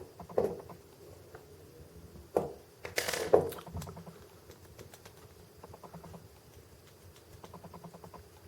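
Light clicks and taps from handling a small diecast model crane and its tiny parts, with a louder scrape about three seconds in and a run of quick faint ticks near the end.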